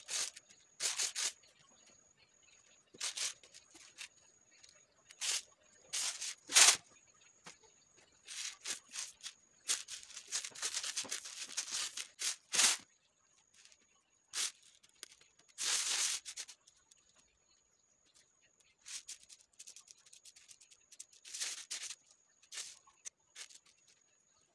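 Dried green coffee beans rattling and rustling in a woven bamboo tray as fingers stir and sift through them while hand-sorting, in short scattered bursts, with a longer run about ten seconds in as a handful of beans is let fall back into the tray.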